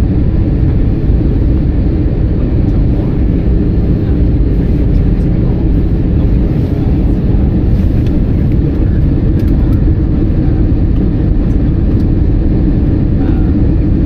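Airbus A320-200 jet airliner in flight: a steady, loud, low rumble of engine and airflow noise that does not change.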